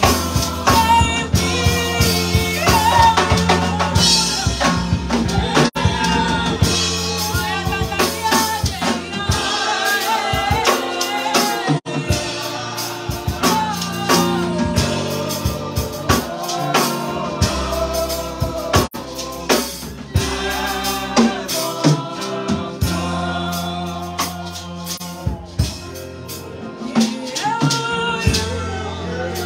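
A woman singing a gospel worship song into a microphone, over band accompaniment of drum kit and bass with a steady beat.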